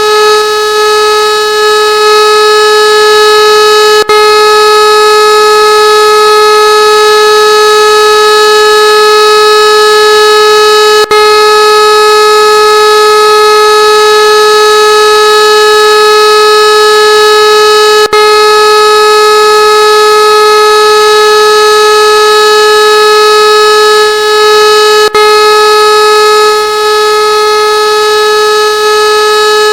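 Siren sounding one loud, steady tone held without any rise or fall, broken by a brief click about every seven seconds.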